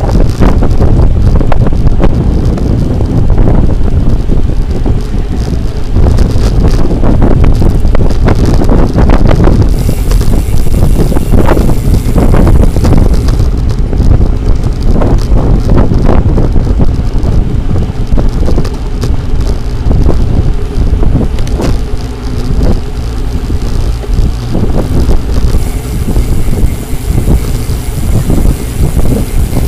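Wind buffeting the microphone of a camera carried on a moving road bicycle, a loud, continuous low rumble.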